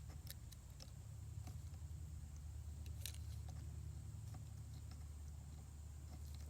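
Faint scattered clicks and taps of small tools and wire being handled during a wire splice, over a steady low rumble.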